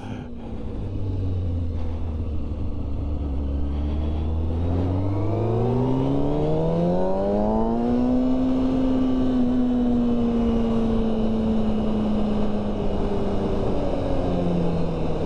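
Dirt bike engine running at low revs, then revving up smoothly for a few seconds from about four seconds in and holding at high revs, easing off slightly near the end.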